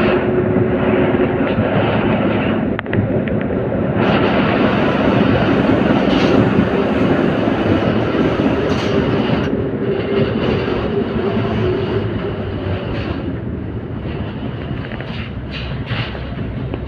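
LVS-86K articulated tram running along its track, heard through an open window vent: a steady rumble of wheels on rail and running gear with a faint steady hum, and a few short clicks near the end.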